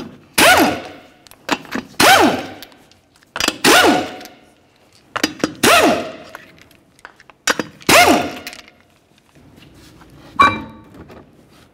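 Pneumatic impact wrench loosening the five lug nuts: five short hammering bursts about two seconds apart, each winding down in pitch as the tool spins off. A short metallic clink follows near the end.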